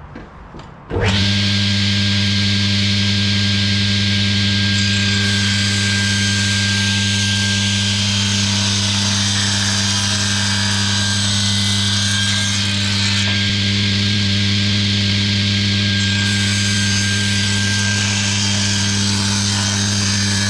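Table saw switched on about a second in and running steadily, with a strong motor hum and the noise of the blade ripping wood into strips.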